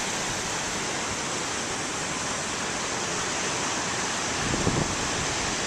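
Big waves breaking and washing ashore in a steady rushing surf, with a brief louder low rush about four and a half seconds in.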